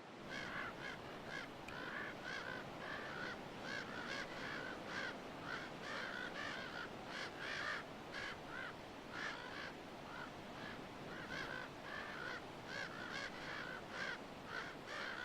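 Common ravens giving rapid, repeated alarm calls, several a second, over a steady background hiss. The calls are an alert to a coyote in their territory.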